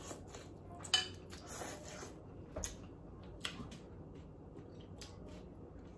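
Faint eating sounds: hot noodles in broth being slurped and chewed, heard as a few short wet smacks and clicks, the sharpest about a second in.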